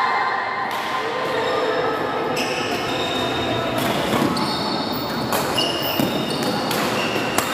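Badminton doubles rally on an indoor court: a few sharp racket hits on the shuttlecock and short high shoe squeaks over a steady background hubbub in a large, echoing hall.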